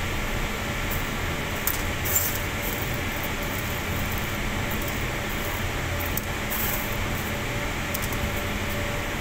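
Cremated bone fragments clicking and scraping on a stainless steel tray as a gloved hand sorts through them: a few light rattles and clicks, about two seconds in and again later, over a steady machinery hum.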